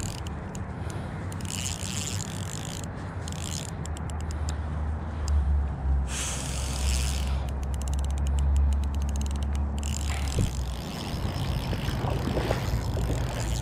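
Spinning reel clicking and whirring in short runs of rapid clicks as a hooked trout is played and reeled in. Wind rumbles on the microphone underneath.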